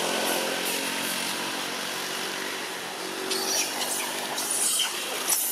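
A motor engine running steadily in the background under a high hiss, with a few short crackles near the end.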